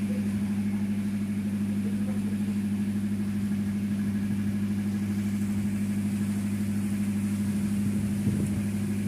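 A boat's engine running steadily at idle: a low, even hum with a fast regular throb. A brief knock sounds near the end.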